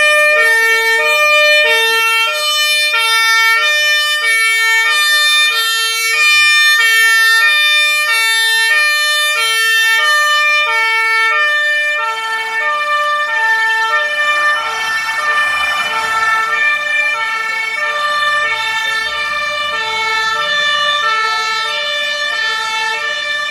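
Fire engine's two-tone siren, stepping back and forth between two pitches about once a second. From about twelve seconds in, the truck's engine is heard as it pulls out close by.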